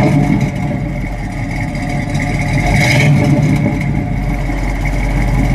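1972 Chevrolet Camaro SS's 350 Turbo-Fire V8 running at idle with a little rumble from the tailpipe, which sounds like a lightly updated exhaust. It swells briefly about three seconds in.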